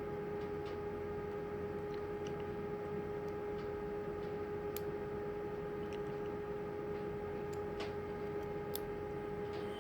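Faint, irregular small metal clicks as a blank key is worked into a lock cylinder, the cylinder shim lifting the pin stacks one by one. A steady hum runs underneath.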